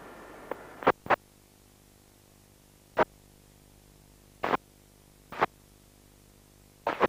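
Police radio scanner between transmissions: brief bursts of static crackle, about six of them spread irregularly, as the channel keys up and drops, over a steady faint hum.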